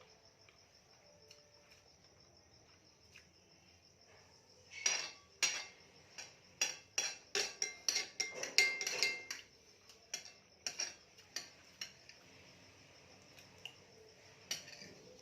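A spoon clinking and scraping against a plate in a quick run of sharp taps for several seconds, then one more clink a few seconds later.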